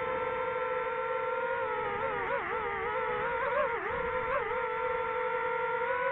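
DJI FPV drone's motors and propellers whining steadily in low flight, heard from the drone's own camera. The pitch wobbles up and down several times in the middle, then settles.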